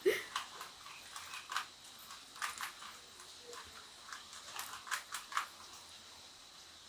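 Rubik's cube being turned by hand: faint, irregular clicking and clattering of its layers as they are twisted.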